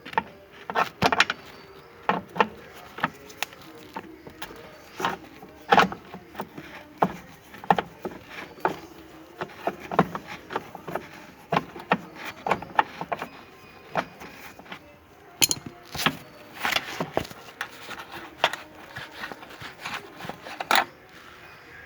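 Irregular clicks and knocks of hand tools against metal and plastic parts while unbolting a car's seat belt retractor assembly.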